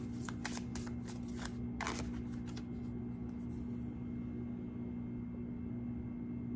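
A deck of oracle cards being shuffled by hand: a quick run of papery flicks and snaps for about the first two and a half seconds, then it stops. A steady low hum runs underneath throughout.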